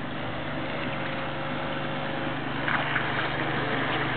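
Steady hum of a radio-controlled electric model boat running on the water, with a thin whine that fades out about halfway through.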